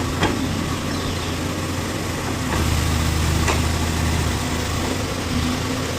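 Backhoe loader's diesel engine running steadily with a low hum, getting a little louder in the middle, with a few short sharp clicks.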